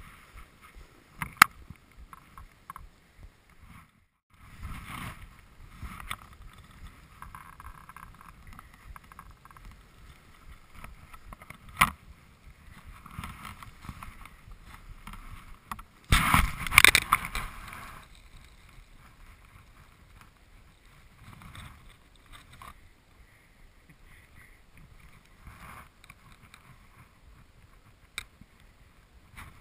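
Snowboard sliding and carving over packed groomed snow: an uneven swishing scrape of the board's edges, with wind rushing on the camera microphone. There are a few sharp knocks, and a louder rush of scraping noise for about two seconds a little past the middle.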